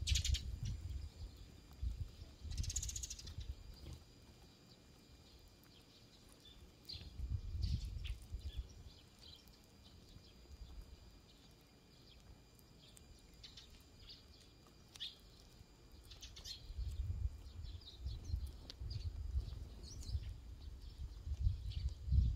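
Sparrows chirping, scattered short high chirps, over repeated low rumbling bursts that are the loudest sound, heaviest near the end.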